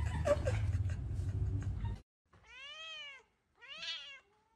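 For the first two seconds a low steady hum runs under faint voices, then cuts off. After that a white cat meows twice, each meow rising and then falling in pitch, the second a little shorter and louder.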